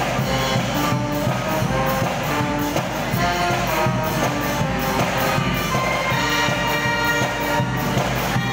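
Brass band playing music, horns carrying a melody of held notes over a steady beat about twice a second.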